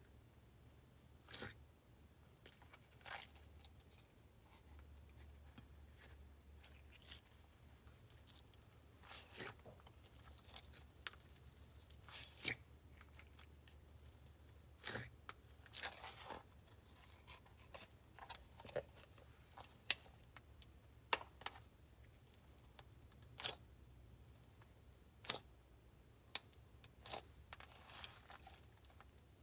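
Foam-bead slime being pressed and stretched by hand: irregular faint crackles, pops and crunches from the foam beads and the slime.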